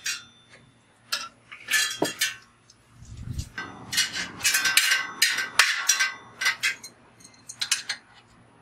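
Metal clinks and clanks of a large adjustable wrench working the bicycle's rear axle nuts as they are broken loose, with a dull thump about three seconds in and a run of rapid clinks after it. The nuts were fitted too tight at the factory.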